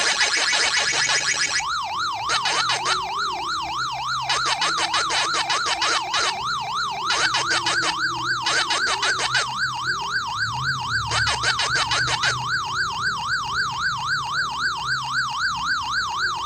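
Electronic warbling siren tone, its pitch swinging quickly up and down about five times a second. It is preceded by a harsh, dense buzzing sound for the first second or so.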